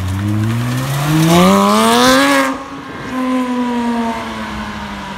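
Porsche 911 GT3's flat-six accelerating hard away, the revs climbing steeply for about two and a half seconds. The sound drops off suddenly at a gear change, pulls briefly again, then runs on as a falling, fading note as the car draws away.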